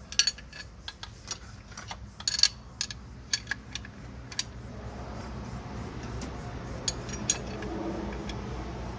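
Spanner work on the mounting bolts after the drive belt has been tensioned: irregular sharp metal clicks and clinks as the wrench and bolts are worked. A faint low steady hum comes in about halfway through.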